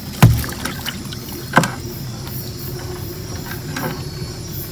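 Two sharp knocks about a second and a half apart as a forest snakehead (ikan bujuk) is dropped into the wet bottom of a small boat and thumps against the hull.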